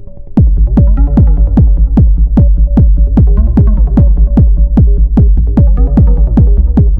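Techno pattern playing on an Elektron Model:Cycles groovebox: a heavy kick and deep bass come in about half a second in, then a steady fast beat of pitch-dropping drum hits, about two and a half a second, with a repeating synth note over it.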